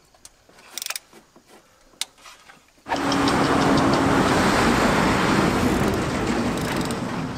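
A few faint clicks from a hand wrench working exhaust header bolts. About three seconds in, a loud engine starts up abruptly and runs steadily with an even drone.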